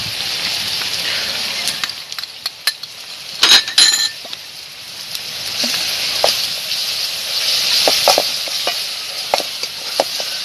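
A curry base sizzling in a steel bowl over a wood fire while a steel spoon stirs and scrapes against the bowl, with scattered clicks; a short burst of ringing metallic clinks comes about three and a half seconds in.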